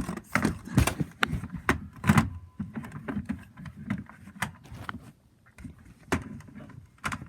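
Irregular knocks, clicks and rustling of objects being handled and moved about, with a few sharper knocks in the first couple of seconds.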